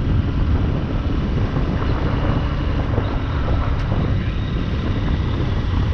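Steady wind rumble on a helmet-mounted lav mic with a deadcat while riding a motorised bicycle, with the bike's motor and road noise underneath.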